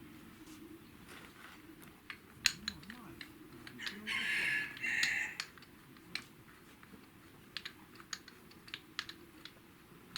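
Scattered light clicks and taps at an uneven pace, with a short two-part animal call about four seconds in.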